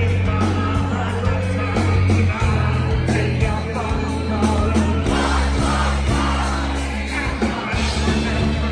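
Live rock band playing loudly: a heavy bass guitar line, steady drums and electric guitar under a lead vocal.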